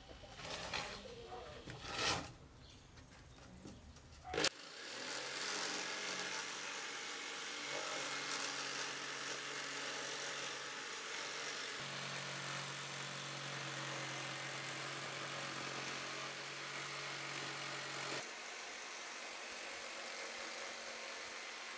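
A few short knocks, then a handheld electric saw starts about four seconds in and runs steadily, cutting through a plywood board. Its sound shifts twice, the last time near the end.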